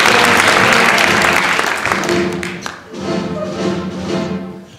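Audience applause that dies away over the first two seconds, as instrumental music begins a slow introduction with held notes, ahead of a song.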